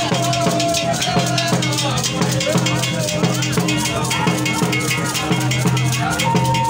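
Music driven by drums and other percussion, a dense fast beat that keeps going steadily.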